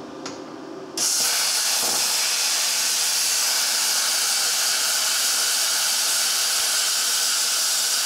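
Luch Profi CUT-50 air plasma cutter starting about a second in and cutting metal at 40 amps with a steady hiss, making a clean cut.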